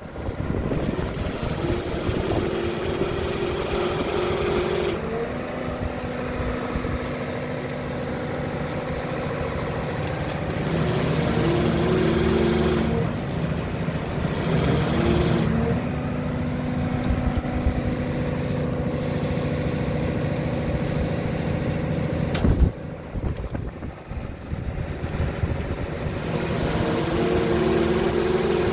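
The drill rig's power pack engine runs steadily under load. Four times a hissing whine comes in for a few seconds and drops out again as the hydraulics are worked. About three quarters of the way through there is a single sharp clunk.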